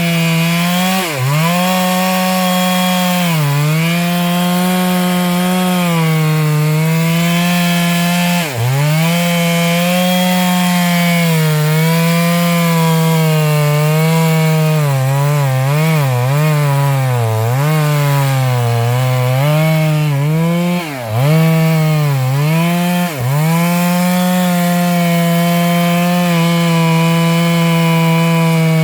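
Stihl MS 382 two-stroke chainsaw running at full throttle while cutting into a large sengon trunk. The engine note sags sharply several times as the chain bogs under load in the cut, then climbs back, with a run of quick dips past the middle.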